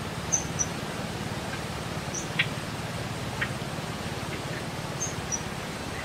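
Short, very high-pitched animal chirps, mostly in pairs, with two lower chirps midway. They sound over a steady low hum of outdoor ambience.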